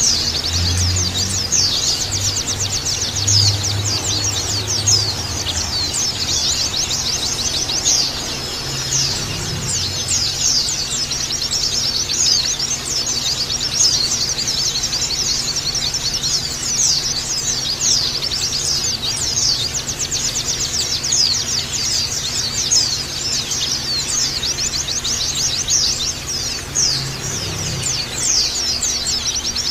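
White-eyes (pleci) chirping and twittering in a dense, continuous stream of rapid high notes.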